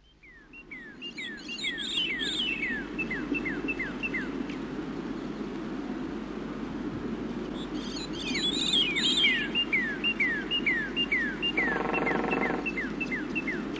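Birdsong: a bird repeating a fast series of quick downslurred chirps, two runs of about nine notes each, with higher twittering calls mixed in over a steady low background hum.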